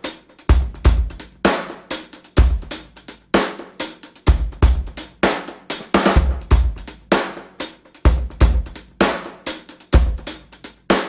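Background music: a drum-kit beat with a bass drum about once a second and snare and cymbal hits between.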